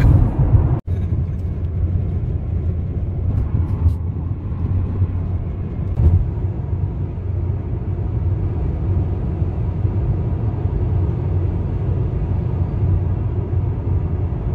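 Road noise inside a car cruising at highway speed: a steady low rumble of tyres and engine. The sound breaks off for an instant about a second in.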